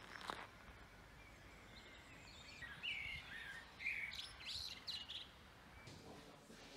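A songbird singing outdoors: a short run of chirps and whistled notes for about two seconds, starting near the middle.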